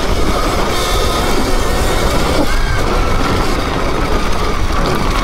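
Sur-Ron electric dirt bike being ridden: a motor whine that drifts up and down in pitch with speed, over heavy wind rumble on the camera.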